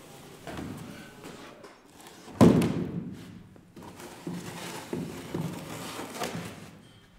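Heavy hewn timber beams being set down and shifted on other beams: one loud wooden thud about two and a half seconds in, then several lighter wooden knocks.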